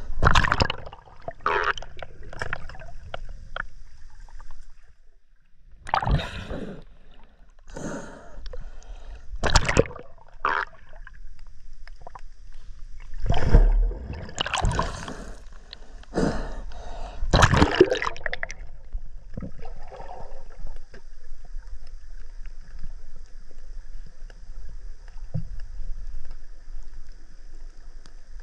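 Water splashing and gurgling around a camera as it breaks the surface and goes under, a string of loud bursts over the first eighteen seconds or so. Then a steady, muffled underwater hiss for the rest.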